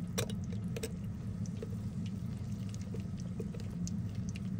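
Ramen noodle block being pushed and stirred into simmering broth in a stainless steel cooker pot: soft wet sloshing with small clicks of a fork against the pot, over a steady low hum.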